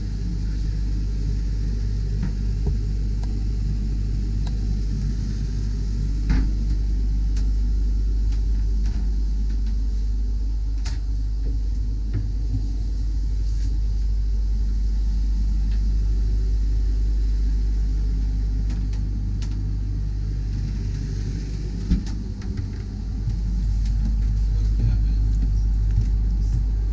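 A steady low rumble, with a few light knocks and clicks.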